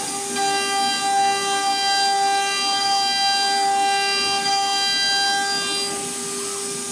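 Mechatron HFO-M8022-24 water-cooled 2.2 kW milling spindle driving an 8 mm end mill through aluminium at 2.5 m/min feed and 1 mm depth of cut: a steady high-pitched whine. A ringing cutting tone grows stronger about half a second in and eases back near the end.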